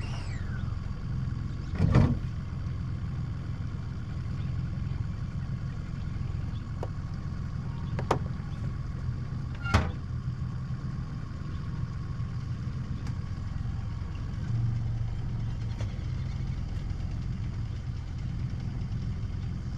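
Outboard motor on a fishing boat running steadily at low trolling speed, a constant low hum. A loud knock about two seconds in and two sharp clicks around eight and ten seconds in.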